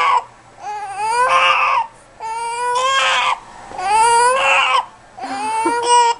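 Baby crying in repeated wails, each about a second long with a short catch of breath between, upset by a bout of hiccups.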